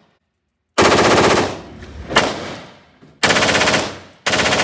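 Three short full-auto bursts from compact personal defense weapons, an H&K MP7 and then an FN P90, each a rapid string of shots that echoes and dies away in an indoor range. The first burst, about a second in, is the longest; the other two come near the end.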